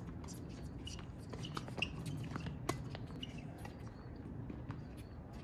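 Tennis rally on a hard court: racket strikes on the ball and ball bounces as sharp clicks, the loudest about two and a half seconds in, with fainter hits, bounces and shoe squeaks between them.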